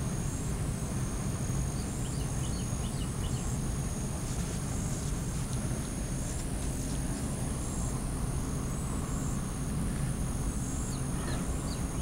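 Outdoor background: a steady low rumble under a thin, continuous high-pitched insect drone, with a few faint bird chirps about two seconds in and again near the end.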